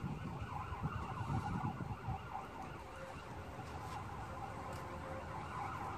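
Faint siren, its pitch wavering up and down, over low handling and rustling noises that fade after the first couple of seconds.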